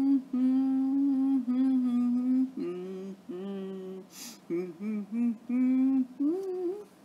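A person humming a wordless tune: a run of held notes stepping up and down, with a short intake of breath about four seconds in.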